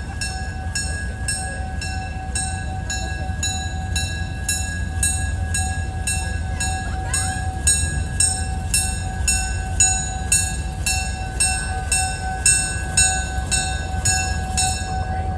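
Diesel locomotive rolling slowly with its engine rumbling low, while a bell rings steadily a bit more than twice a second and falls silent near the end.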